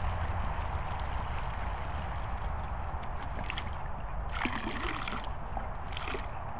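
Garden hose jet spraying onto grass, a steady watery hiss, with a few brief louder splashes about halfway through and near the end as a dog snaps at the stream.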